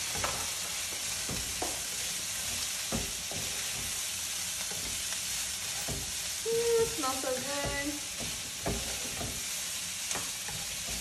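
Vegetables and garlic sizzling in oil in a very hot wok, a steady hiss, while a wooden spatula stirs them with occasional scrapes and knocks against the pan.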